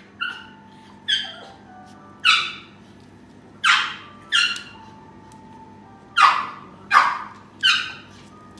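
Small dog yapping in play: eight sharp, high-pitched barks at uneven intervals, the sound of a dog inviting another to play.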